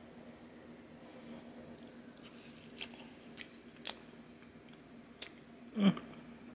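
A person biting into and chewing a cheeseburger close to the microphone: scattered soft wet clicks and smacks, with one louder bite or mouth sound near the end.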